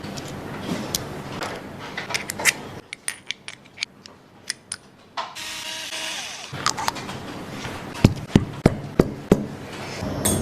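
Clicks and knocks of small hard parts and tools being handled, with a brief noisy whirring burst about five seconds in that lasts about a second.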